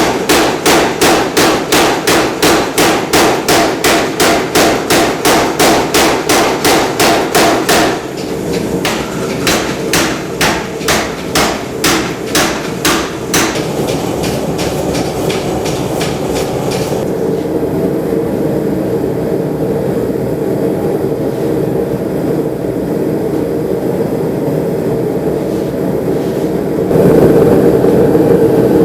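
Rapid, evenly spaced hammer blows, about three a second, forging a Damascus billet of two steels. The blows weaken and stop about halfway through, leaving a steady rushing noise that grows louder near the end.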